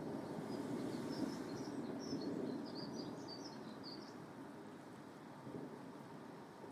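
Rumble of thunder dying away over steady rain, with a run of small, high bird chirps during the first four seconds.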